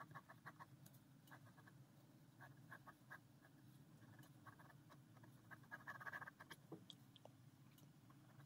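Faint ballpoint pen strokes scratching on paper, short strokes in quick runs, with a denser stretch of scribbling about six seconds in.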